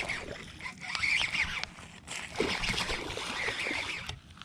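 Hooked largemouth bass splashing and thrashing at the water's surface as it is reeled in, in irregular bursts.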